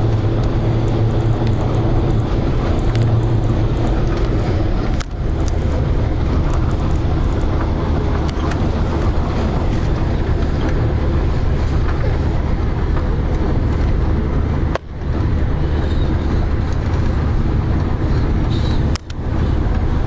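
Minibus engine and road noise heard from inside the cabin, a steady drone. The engine note drops to a lower pitch about five seconds in, and the sound briefly dips twice near the end.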